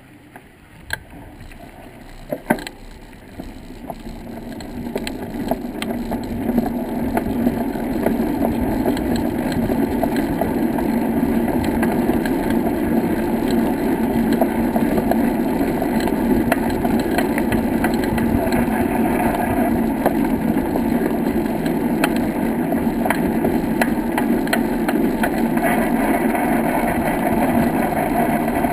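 Steady rushing rumble of wheels rolling over brick paving, with wind on the microphone. It swells over the first several seconds as the ride picks up speed, then holds level, with scattered small clicks and rattles.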